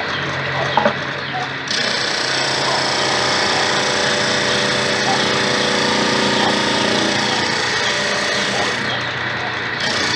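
Homemade disc sander, an electric motor spinning a sandpaper-covered plywood disc, running with a steady hum while wood is ground against the abrasive, giving a harsh hiss. The hiss thickens about two seconds in and eases briefly near the end, as the workpiece is pressed on and lifted off.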